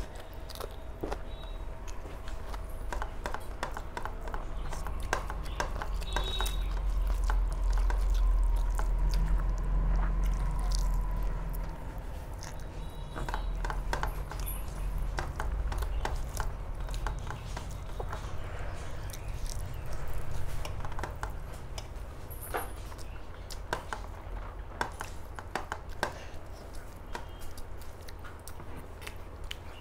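Close-miked chewing of a mouthful of rice and curry, with many small wet clicks and smacks.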